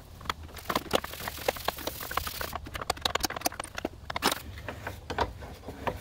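Wrench and fitting clinking on a transmission cooler line as its loosened flare nut is worked off the radiator: a run of irregular metallic clicks and taps.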